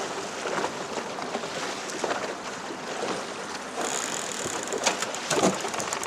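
Steady rush of wind and choppy river water around a small aluminum boat, with a few light knocks and a heavier thud about five and a half seconds in.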